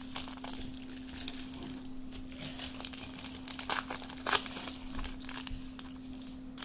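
Foil wrapper of a Bowman Platinum baseball card pack crinkling and tearing as it is pulled open by hand, in irregular crackles. A faint steady hum runs underneath.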